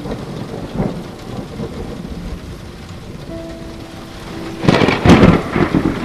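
Thunderstorm: steady rain with rumbling thunder, and a loud clap of thunder about five seconds in.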